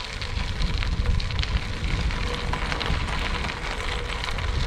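Bicycle tyres rolling over a gravel road: a steady crackling crunch of small stones, with a low rumble underneath.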